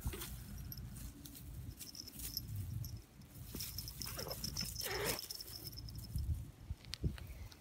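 Two cats, a tabby and a tortoiseshell, fighting on dry grass: their bodies and paws scuffle and rustle through dry grass and leaves, with two short cat cries about four and five seconds in.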